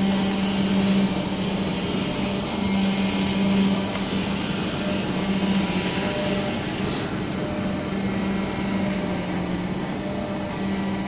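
Steady machinery noise: a constant low hum that swells and fades a little, under a steady hiss.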